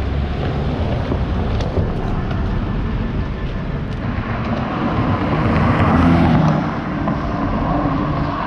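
Street traffic noise with a car passing close by: its engine grows louder to a peak about six seconds in, then fades.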